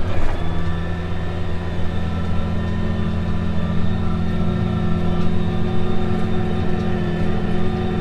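Farm tractor's diesel engine running steadily, heard from inside the cab while it pulls a tillage rig through the field.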